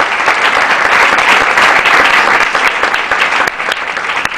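Audience applauding: a dense wash of clapping that thins out to scattered separate claps near the end.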